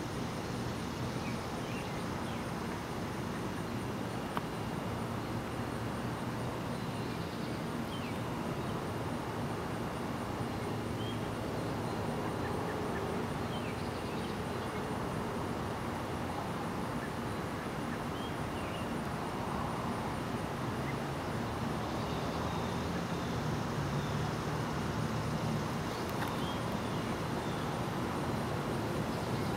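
Outdoor ambience: a steady low rumble and hiss with a few faint, short bird chirps scattered through.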